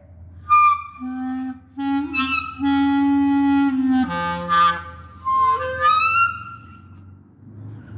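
Clarinet played solo: a slow phrase of separate held low notes, with shrill high squeaks at the start and a high note sliding upward about six seconds in, then fading out.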